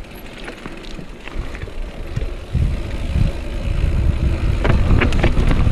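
Wind buffeting a GoPro's microphone on a moving mountain bike: a low rumble that jumps louder about two and a half seconds in, with short clicks and rattles from the bike over rough ground.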